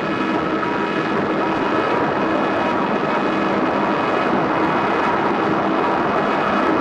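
Droning electronic noise music: a dense, steady wall of noise with several held tones running through it, close to the sound of an engine drone.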